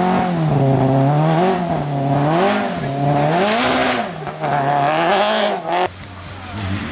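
Renault Clio rally car's engine revving as the car pulls away on a muddy gravel stage, its revs rising and falling repeatedly, about once a second. It cuts off suddenly near the end, leaving a lower, steadier hum.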